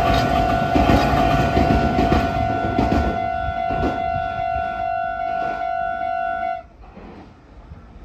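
Japanese level-crossing electronic warning bell ringing at a slightly fast tempo while a train rumbles through, its wheels clacking over rail joints. The bell stops suddenly about two-thirds of the way in, as the train clears the crossing, and it goes much quieter.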